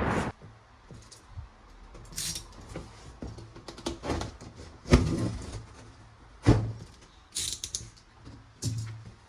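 Plastic toy guns being handled: scattered clicks and knocks, with two sharper knocks about five and six and a half seconds in, and a few short rustles. A loud burst ends just after the start.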